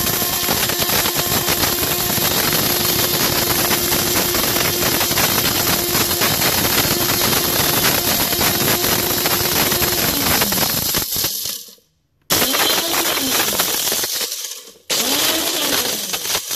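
Personal bullet-style blender running with a credit card inside, its blades chopping and rattling the hard plastic fragments around the cup in liquid. The motor's hum sinks and it cuts out briefly about twelve seconds in, restarts, and stops and starts again once more near the end.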